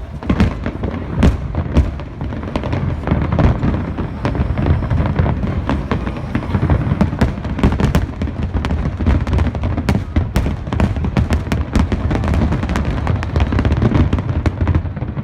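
Harbour fireworks display: a dense run of bangs and crackling bursts, several a second, with the booms overlapping into one continuous low sound.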